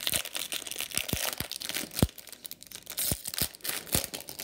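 The foil wrapper of a 2020 Topps Series 1 jumbo card pack being torn open and crinkled by hand: an uneven run of crackling with several sharp snaps.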